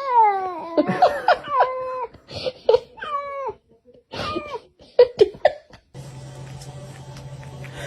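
A cat meowing repeatedly: about six separate calls, each falling in pitch. About six seconds in they give way to a steady low hum.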